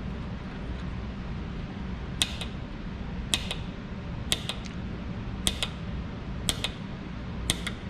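Solder being cut into tiny pieces with a small hand cutter: six sharp double clicks, one cut about every second, starting about two seconds in.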